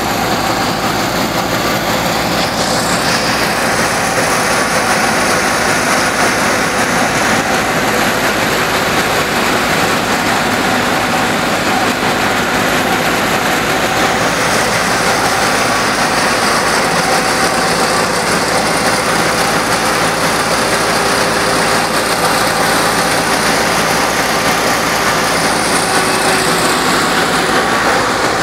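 87-model Fiat diesel tractor running steadily under load, driving a guar thresher, mixed with the thresher's own steady churning as stalks are fed in.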